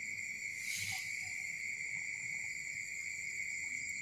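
Steady night chorus of crickets and other insects, a shrill trill held on several high pitches. A short scratchy burst of noise comes just before one second in.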